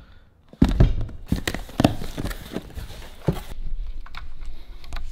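Cardboard boxes and their packing being handled: a run of knocks and thuds in the first two seconds and one more a little past three seconds, with rustling throughout.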